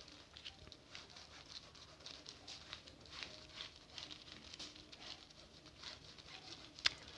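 Faint, irregular scratchy rubbing as marker writing is wiped off a plastic sheet, with one sharper click near the end.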